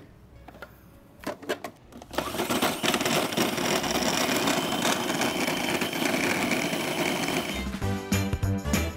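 Small electric food processor motor running, starting about two seconds in, its sound turning lower and pulsing near the end.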